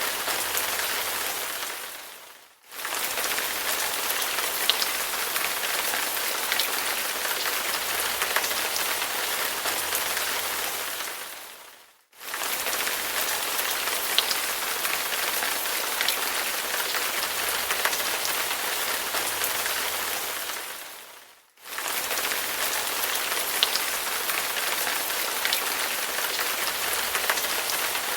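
Steady rain, an even hiss with scattered sharp drop ticks. It fades out and comes straight back three times, about every nine to ten seconds.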